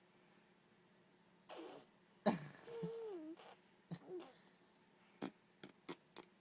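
A baby vocalizing: a breathy sound, then a sudden high-pitched babble that wavers and falls in pitch, a short coo, and four or five quick mouth clicks near the end.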